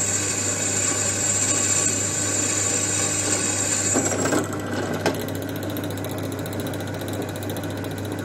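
Electric drill running while a freshly hand-sharpened twist bit cuts cleanly into lubricated soft steel, throwing long spiral chips. About four seconds in the cutting sound drops away, a sharp click follows a second later, and the motor keeps running.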